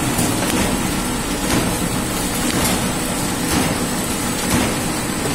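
Flow-wrap packaging machine running as it wraps ice candies in film: steady mechanical running noise with faint knocks at a regular pace.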